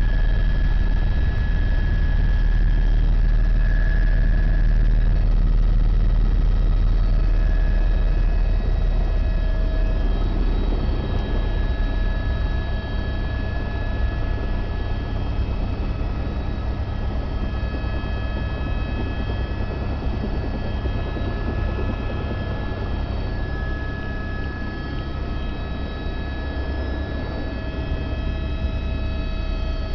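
Helicopter rotor and engine drone heard from inside the cabin in flight: a steady low rumble with faint steady whine tones above it, the deepest rumble easing a little about ten seconds in.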